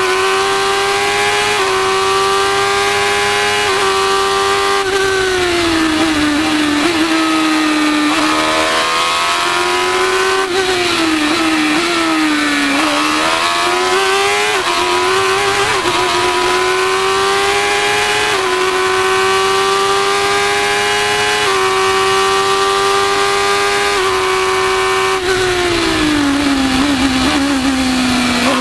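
A Formula 1000 race car's 1000 cc motorcycle engine running at high revs through a lap. Its pitch holds high on the straights with brief breaks at the gear changes. The pitch drops and climbs back as the car slows for corners: about five seconds in, around twelve seconds, and again near the end.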